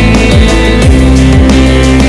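Background rock music with distorted guitar and a steady kick-drum beat.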